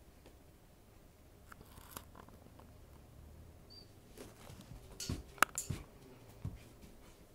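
Puppy and cat pawing and scuffling at each other on a carpet: a few soft scuffles, then a cluster of sharp clicks and taps about five seconds in, over quiet room tone.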